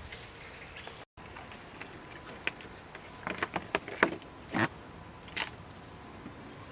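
A quick run of short, crisp snaps and clicks over a steady background hiss, bunched in the middle with a few louder ones.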